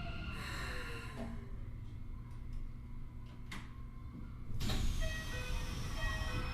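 Keikyu 1000 series train running, heard from inside the car: a steady rumble with the Mitsubishi IGBT inverter and traction motor tones. Falling tones fade out early on, and a louder rush about 4.5 s in brings short stepped tones. This car's motors are unusually loud, sounding like the early GTO-type units.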